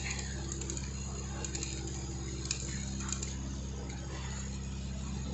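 Vibratory bowl feeder running with a steady electric hum while small capacitors rattle and tick along its vibrating track, with a few sharper clicks near the middle.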